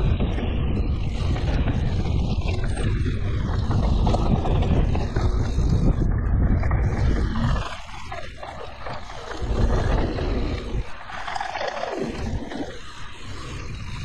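Wind rushing over the camera microphone as a mountain bike rolls down a dry dirt trail, with the tyres crunching and rattling on the loose surface. The rumble is loud for the first half, drops off sharply about halfway through, surges briefly a couple of seconds later, then stays lower.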